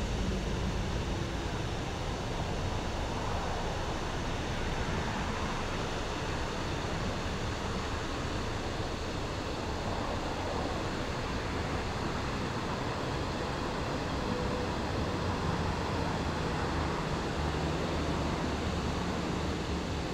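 Steady background rumble of distant city traffic, even and unbroken, with no distinct events.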